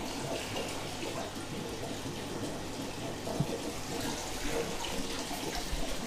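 Water running down a PVC overflow pipe and splashing into the aquarium tier below, a steady splashing and trickling, with bubbling around the standpipe as it is adjusted underwater.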